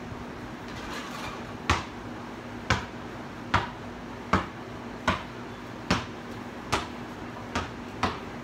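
Basketball dribbled on a concrete patio: nine sharp bounces at a steady pace, roughly one every second, starting a couple of seconds in.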